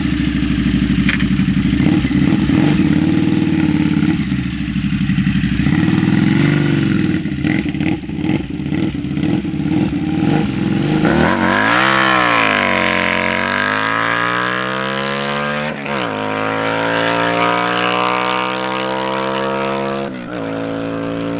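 Harley-Davidson Night Rod Special's V-twin engine through a TAB Performance aftermarket exhaust, running loudly at standstill for about eleven seconds, then pulling away under hard acceleration, its pitch climbing with two gear changes.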